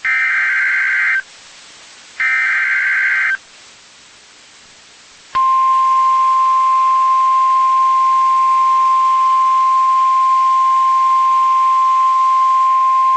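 Emergency Alert System broadcast on NOAA Weather Radio. First come two SAME header data bursts, each about a second of harsh, rapidly warbling digital tones, a second apart. Then, about five seconds in, the steady 1050 Hz warning alarm tone starts and holds. This is the alert sequence that signals a new warning is about to be read.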